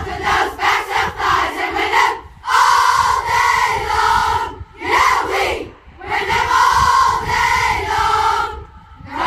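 A large group of school pupils chanting a spirit cry in unison, in about four long loud phrases with short breaks between them.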